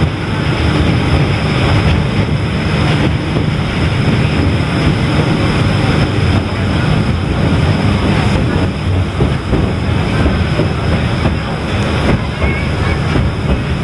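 Elevated electric tram of the DisneySea Electric Railway running along its raised track, heard from aboard at the car's open side: a steady low rumble of wheels on rail with a thin high whine over it, and a few sharp knocks in the second half.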